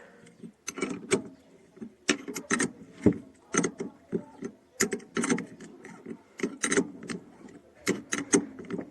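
Wrench tightening the nut on the top of a shock absorber rod at the strut mount: sharp metallic clicks in short irregular bursts. The rod turns along with the nut instead of holding still.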